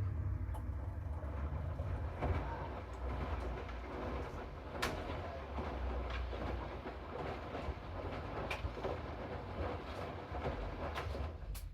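Hoover front-loading washing machine turning its drum mid-cycle: a low steady rumble with clattering and occasional sharp clicks from the load and drum. It stops at the very end.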